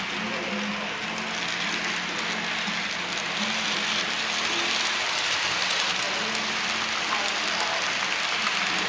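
HO-scale model freight train rolling past: a steady rushing of small metal wheels on the rails with faint ticking, growing louder about three and a half seconds in as the locomotives and cars come close.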